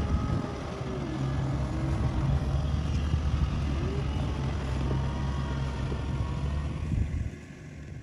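Kubota DC-70 combine harvester's diesel engine running with a steady low drone, dropping away sharply near the end.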